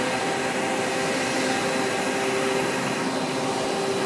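PE/PP plastic film pelletizing line running: a steady machine noise with several steady humming tones mixed in.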